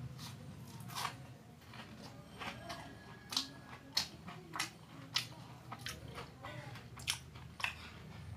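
Close-miked mouth sounds of someone eating crisp fried food: soft chewing at first, then a run of sharp crunches about every half second in the second half.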